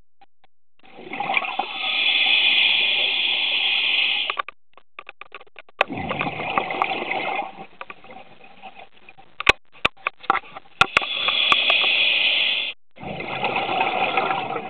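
Scuba regulator exhaust underwater: a diver breathing out, in several rushing bursts of bubbles a few seconds long, with sharp clicks in the pauses between them.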